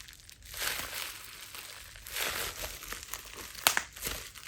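Plastic bubble wrap being handled, crinkling in two swells, then a sharp pop about three-quarters of the way through as a bubble is burst.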